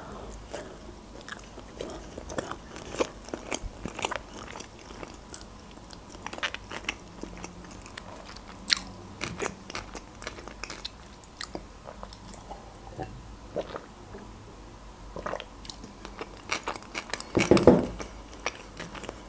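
Close-up mouth sounds of a person chewing a sushi roll: scattered soft crunches and clicks, with a louder bout of chewing near the end.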